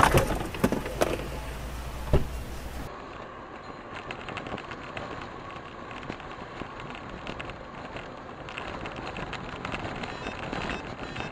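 Car cabin noise: low road and engine noise with a single knock about two seconds in. About three seconds in it gives way to a different car's cabin on a wet road, a quieter steady hum with scattered light ticks.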